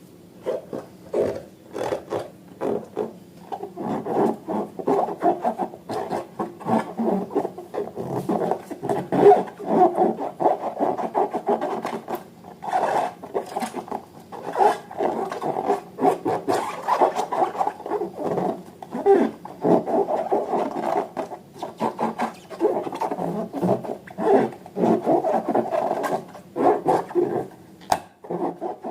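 Hands working rubber balloons and slime: continual rubbing and scraping sounds broken by many small sharp clicks, with no pauses.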